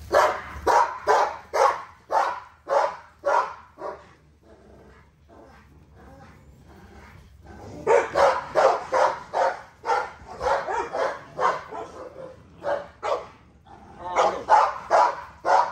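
American bully puppies barking at play, short sharp barks about two a second, with a lull of a few seconds after the first burst before the barking picks up again.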